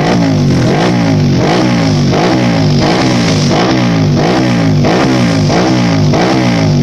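Racing motorcycle engine revved in quick throttle blips, over and over, a little under twice a second. Each time the pitch jumps up and falls back.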